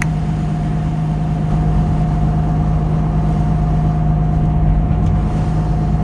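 Vehicle driving along at steady speed, heard from inside: a continuous low rumble of engine and road noise with a steady drone and a fainter, higher steady hum.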